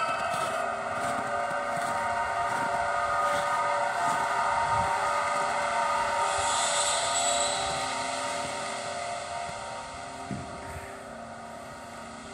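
Small multirotor drone's motors and propellers whining steadily, several held tones over a light hiss, fading from about two-thirds of the way in.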